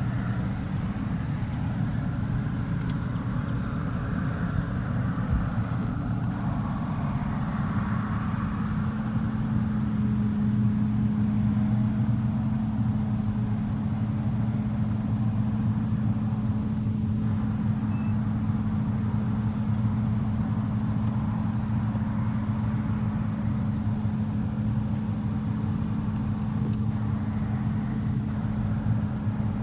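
Claas Trion 660 combine harvester running steadily under load as it harvests oilseed, a constant engine hum with the rush of the threshing machinery.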